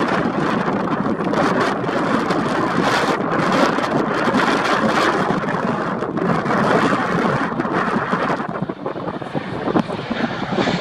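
Strong, gusting storm wind buffeting the microphone: a loud, dense noise with constant short gusts.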